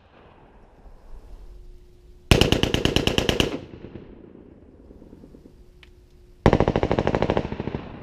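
Two bursts of fully automatic gunfire, each about a second of rapid shots, fired for a sound-effects recording, with the report echoing off nearby buildings and trailing away after each burst.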